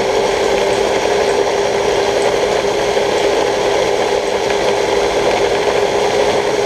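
Prolex electric mini food chopper running steadily, its blade whirring through onion pieces and thick sauce in the plastic bowl, with a constant hum and a rattle.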